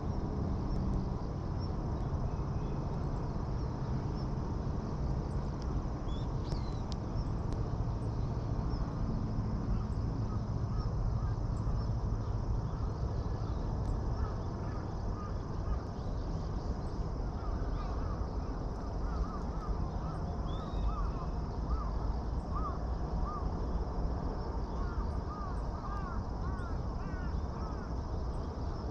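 Birds calling: a run of short, repeated calls in the second half, over a steady low outdoor background noise.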